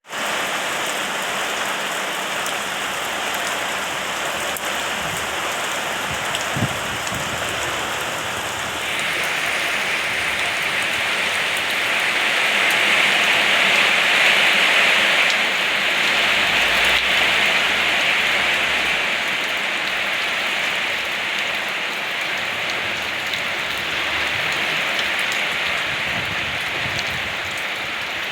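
Steady rain falling in an even hiss that grows heavier about a third of the way in, then eases slightly.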